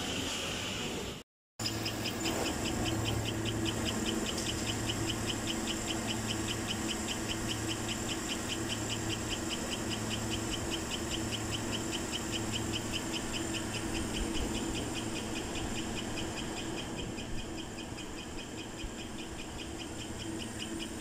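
GMC Yukon V8 engine running steadily, with a fast, even ticking over a low hum; the engine's owner presents it as having a problem.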